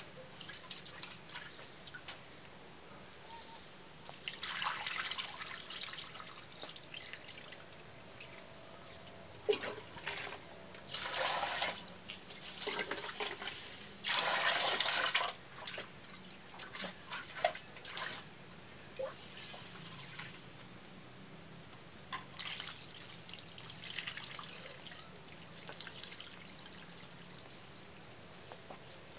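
Rice being washed by hand in an aluminium cooking pot: water swishing and splashing in irregular spells. A pour of water from a metal jug into the pot about halfway through is the loudest part.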